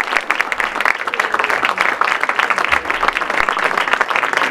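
Audience applauding: many hands clapping in a dense, even patter that holds steady throughout.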